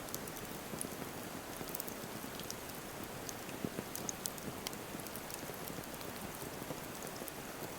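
Wood campfire burning: a steady hiss with scattered sharp crackles and pops, a few louder pops near the middle.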